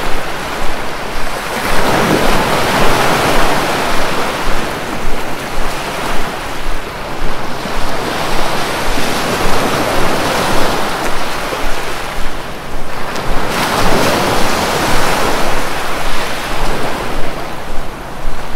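Sea waves breaking on a beach: a steady wash of surf that swells and eases every few seconds as each wave comes in.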